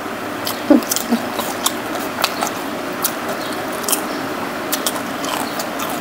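Close-up crunching and chewing of a bitten-off piece of raw cucumber, a scatter of short crisp crunches over a steady background hiss.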